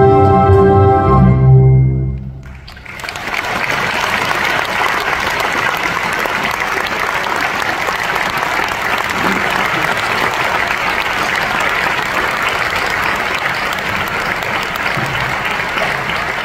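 An orchestra holds a final chord that cuts off about two seconds in; after a short pause, an audience applauds steadily.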